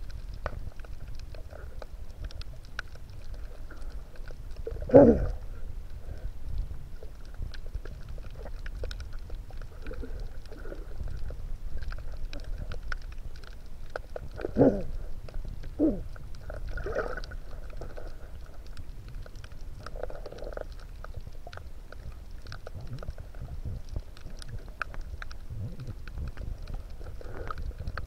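Underwater sound picked up by a camera in its waterproof housing: a steady low rumble with faint scattered crackling clicks. Three short, louder swishes stand out, about five seconds in and twice around fifteen seconds.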